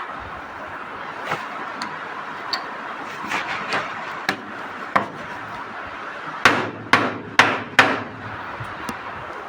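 Hammer blows: a few scattered light taps, then four hard strikes about half a second apart near the end.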